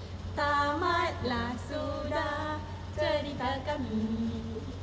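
Female voices singing a tune, ending on a long held low note about four seconds in.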